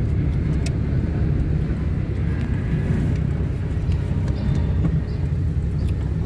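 Steady low rumble of a car's engine and tyres heard from inside the cabin while it drives along a street.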